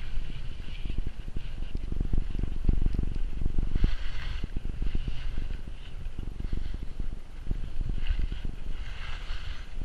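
Wind buffeting the microphone of a helmet camera while skiing downhill, a constant low rumble. Over it, skis hiss and scrape on the packed snow, loudest about four seconds in and again near the end.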